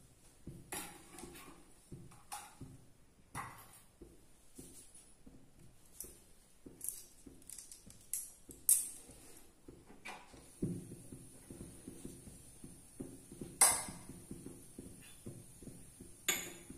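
Oil heating in a non-stick frying pan on a gas burner: scattered, irregular light ticks and crackles, a few of them sharper. A low steady hum comes in about ten seconds in.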